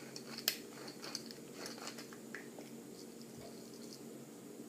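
Hand pepper grinder being twisted, giving faint, irregular crackling clicks as peppercorns are ground, with one sharper click about half a second in.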